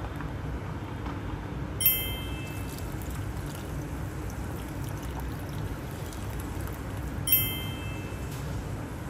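Water poured from a bowl into a pan of simmering nihari gravy, over a steady low hum. Two sharp clinks with a brief ring, about two seconds in and again near the end.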